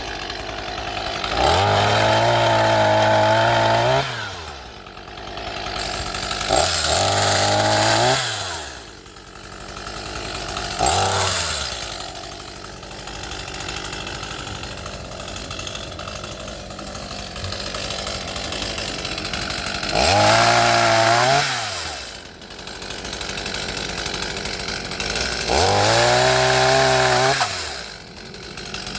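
Small gas chainsaw revved to full throttle five times, each burst rising in pitch and falling back to idle, the longer ones lasting about two seconds, with the saw idling between.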